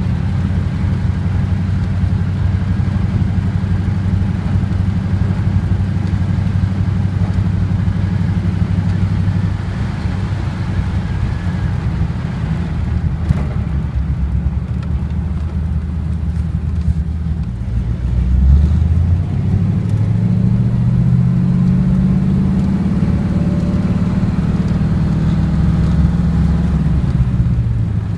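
Engine of a 1939 car running steadily while driving. About two-thirds through the engine note dips, then rises as it accelerates, and falls again near the end.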